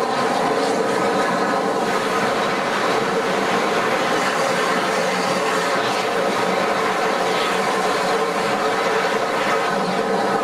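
Steam-hauled passenger train behind Bulleid West Country Pacific 34046 running slowly along a station platform, heard from an open coach window. A steady, even running noise of the moving train, wheels on rails, with no distinct beats.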